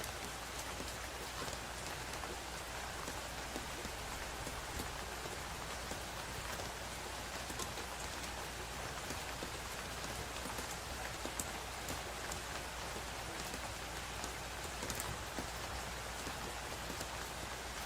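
Steady rain falling: an even hiss with scattered individual drops tapping.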